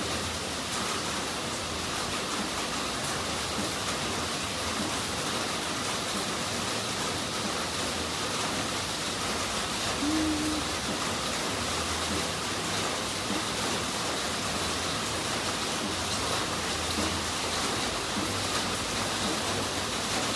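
Steady, even hiss of background noise, with a brief faint tone about ten seconds in.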